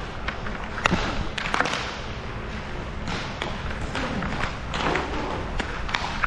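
Hockey play: scattered clacks and thuds of sticks and puck over steady rink noise.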